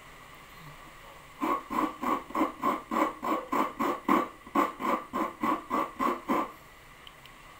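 Half-mature coconut being grated by hand, with quick, even rasping strokes at about four a second. The strokes start about a second and a half in and stop near the end.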